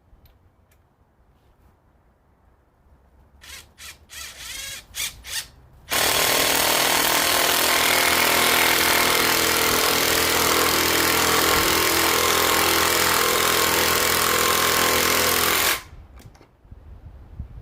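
Ryobi PBLID02 brushless cordless impact driver, set to mode 2, driving a 3/8-inch lag bolt into wood. A few short trigger blips come first, then about ten seconds of steady, loud hammering that stops suddenly.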